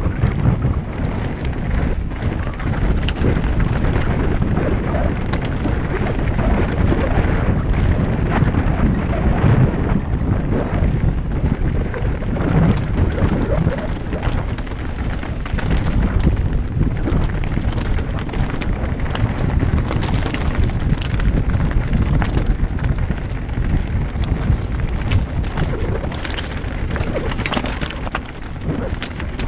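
Mountain bike rolling fast down a rocky, gravel-strewn track: tyres crunching over loose stones and the bike rattling with many small knocks, over a steady rush of wind on the camera.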